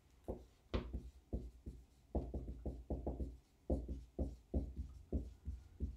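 Dry-erase marker writing on a whiteboard: a string of short, irregular knocks and taps as the strokes of each letter hit the board.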